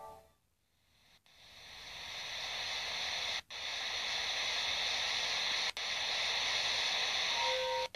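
Static-like hiss from a space 'planet sound' recording, fading in from near silence over the first couple of seconds and then holding steady, cut by brief dropouts about three and a half and nearly six seconds in. Near the end two steady tones come in under it.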